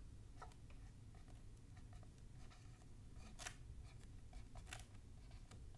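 Faint, short squeaks and scratches of a marker writing on a whiteboard, in irregular strokes over a low room hum.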